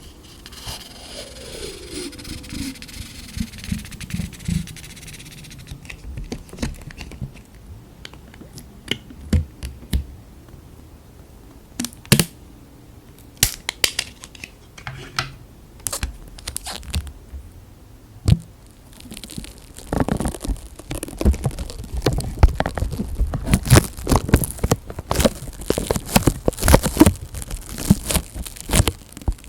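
Close-miked ASMR handling sounds of sticky tape and plastic: scattered peeling, tearing and crinkling at first, then dense crackling in the last ten seconds.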